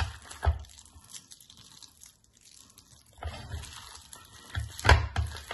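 Hands squishing and kneading a wet grated-potato and vegetable dough in a glass bowl. It goes quiet for a couple of seconds, then grows busier, with a sharp knock about half a second in and a louder one near the end.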